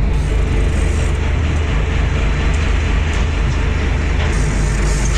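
Charter fishing boat's engine running steadily: a constant low drone with a steady hiss over it.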